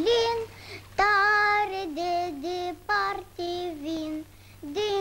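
A child singing a Romanian-language song solo, a line of held notes stepping up and down, with a short pause about four seconds in.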